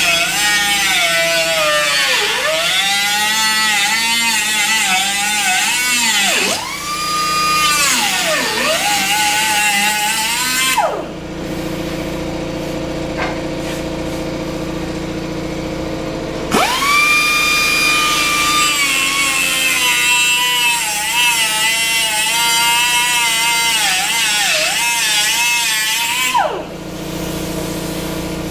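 Air cut-off tool cutting through the rusty sheet steel of a car's inner fender: a high whine that sags in pitch as the wheel bites and climbs back when it runs free. It stops about 11 seconds in and starts again about five seconds later for another ten seconds, with a steady lower hum in the pause.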